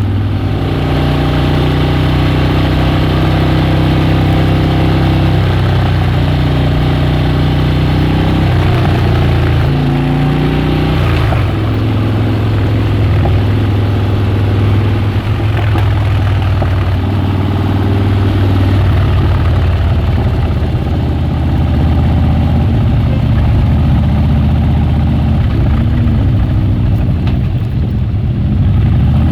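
Harley-Davidson Dyna Switchback's air-cooled V-twin running loud and steady, its pitch shifting briefly about a third of the way in before settling again.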